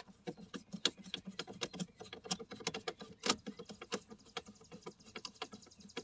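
Phillips screwdriver turning a bolt under a car's dashboard to loosen it: many small, irregular clicks and ticks, several a second.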